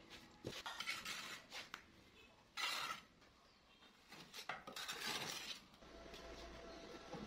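Bricklaying: a mallet tapping bricks into wet mortar and mortar being scraped along the joints, in short knocks and scrapes.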